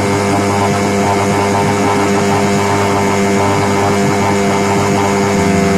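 Yamaha 3 hp two-stroke single-cylinder outboard motor running steadily at high revs, about 6000 rpm, with a steady tone.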